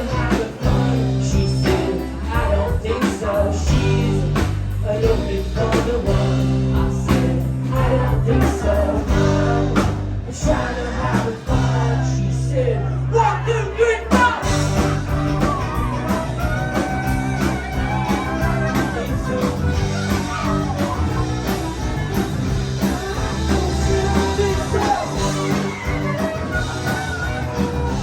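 Live rock band playing with full drums, bass and guitars, no lead vocal line; the arrangement changes about halfway through, where the held low notes give way to a busier pattern.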